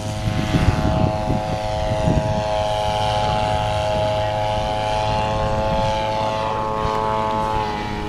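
Radio-controlled biplane's propeller engine running at high throttle as the plane takes off and climbs: a steady, pitched drone that shifts slightly near the end.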